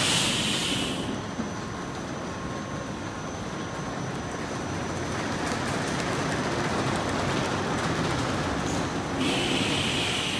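Car wash polish tunnel in operation: the Peco wrap/top brush combo and mitter spinning and slapping against a pickup truck, a steady mechanical rumble. A hiss rises over it in the first second and again about nine seconds in.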